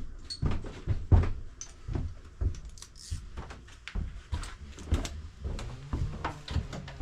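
Irregular clicks and knocks of a hand tool on the scooter's handlebar while 10 mm bolts are worked loose, the loudest knock about a second in.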